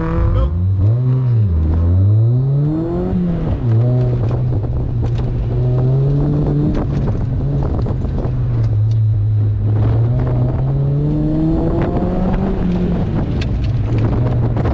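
Car engine launching hard from a standstill, its revs climbing and dropping sharply in the first few seconds, then running at a fairly steady pitch that rises and falls with the throttle through the autocross course. Wind buffets the microphone in the open cockpit.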